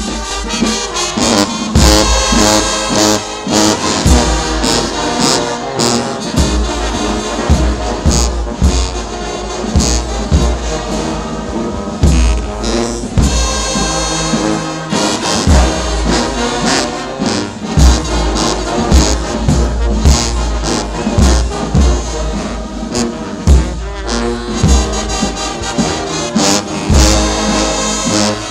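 Brass band music, trumpets and trombones playing over a heavy, steady drum beat.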